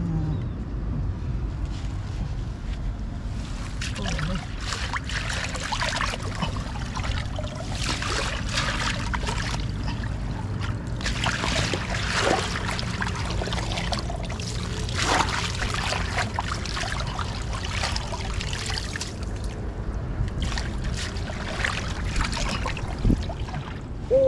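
Water splashing and trickling in irregular surges over a steady low rumble.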